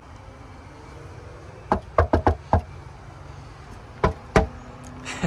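Knocking on a wooden front door: a quick run of about five knocks about two seconds in, then two more knocks about four seconds in.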